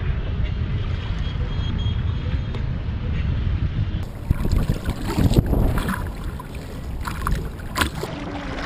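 Wind buffeting the microphone over open water, then, about halfway through, kayak paddle strokes splashing into the river close to a camera mounted on the paddle, with several sharp splashes.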